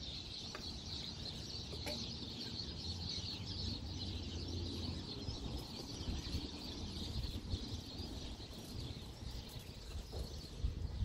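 Mobility scooter running slowly in its low-speed turtle setting: a steady high hum from the drive over a low rumble from the wheels.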